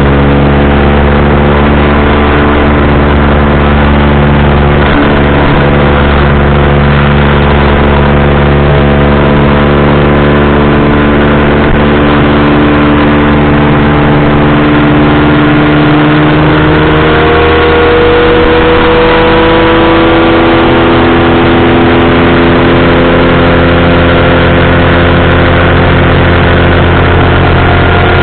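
Powered parachute's engine running steadily at flight power, very loud, its pitch rising slightly about two-thirds of the way through.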